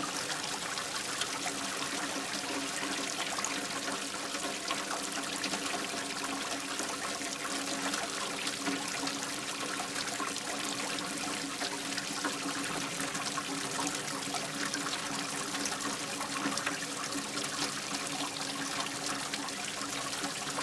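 Light rain falling with water trickling and running into a drain. Steady throughout, with many small drop ticks over the even sound of running water.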